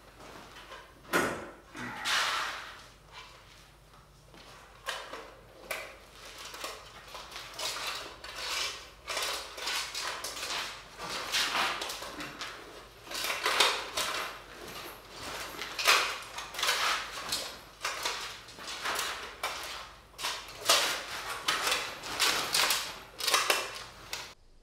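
Irregular metallic scraping and clinking from steel armour pieces being worked by hand, with a heavier knock about a second in.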